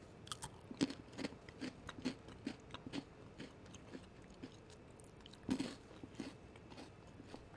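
A thin Pretz baked pretzel stick being bitten and chewed close to the microphone: a run of short, crisp crunches, with a louder cluster about five and a half seconds in.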